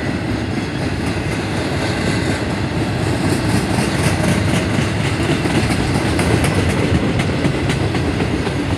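Double-stack intermodal container freight train rolling past at moderate speed: a steady rumble of wheels on rail, with a run of wheel clicks over the rail joints from about three seconds in.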